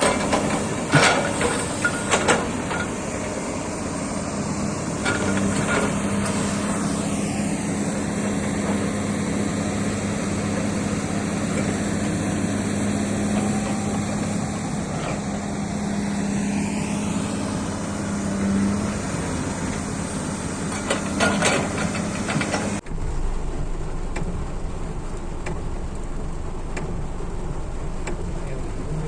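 Excavator's diesel engine running steadily with a steady hum through the middle and a few sharp knocks and clanks, a cluster about a second in and another near three-quarters through. Near the end the sound turns abruptly duller.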